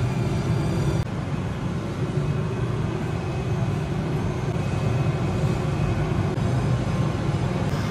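A steady low mechanical roar with faint, steady high whining tones over it, dipping briefly about a second in.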